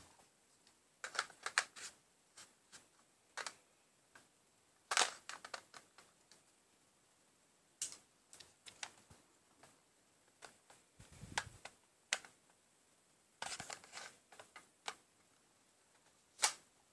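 Irregular clicks, taps and rustles of objects being handled, in small clusters every second or two, with a low thud about two-thirds of the way through and a sharp click near the end.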